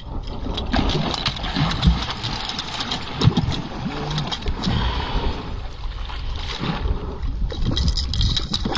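Water splashing and sloshing around a small fishing boat, over a steady low rumble of wind on the microphone, with scattered knocks and clicks throughout.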